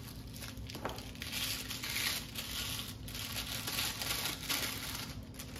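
Thin wrapping paper crinkling and rustling as it is pulled off a knife, in several bouts, with one sharp click just before the first bout; the rustling dies down near the end.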